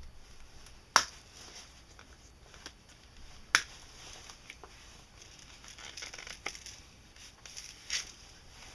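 Handling noise from a machete and its leather sheath: light rustling and small taps, with two sharp clicks about a second in and again about two and a half seconds later.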